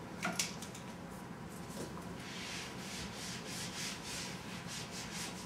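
Whiteboard eraser wiping the board: a dry rubbing hiss in rapid back-and-forth strokes from about two seconds in, after a brief scrape near the start.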